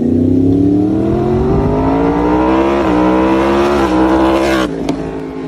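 Motorcycle engine accelerating hard, its note climbing steadily with two brief dips, then dropping in pitch and loudness as the bike passes about four and a half seconds in.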